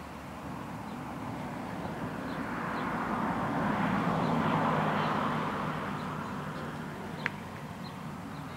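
A vehicle passing by: its sound swells to a peak midway and fades away. Faint bird chirps sound throughout, and a single sharp knock comes near the end.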